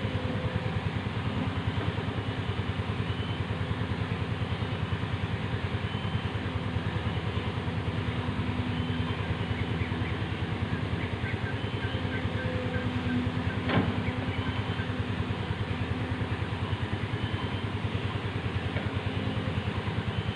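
Excavator's diesel engine running steadily with an even, fast pulse, and one sharp knock about fourteen seconds in.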